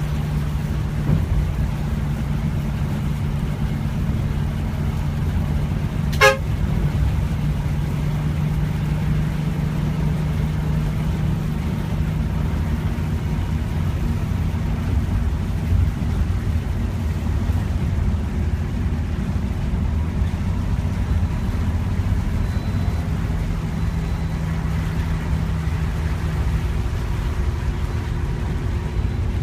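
A moving road vehicle's engine and road noise as a steady low drone, with a single sharp click about six seconds in.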